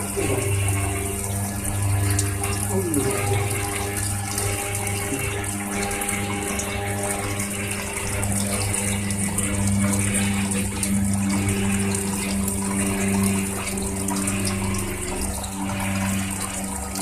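Milk cream separator running with a steady hum, milk and cream streaming from its spouts.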